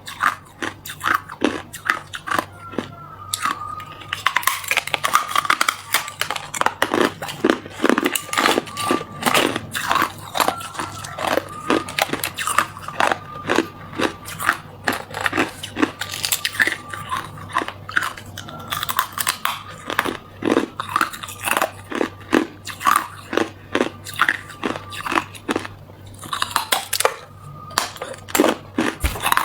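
A person biting and chewing hard clear ice: a close, rapid, uneven run of sharp crunches as the ice cracks between the teeth.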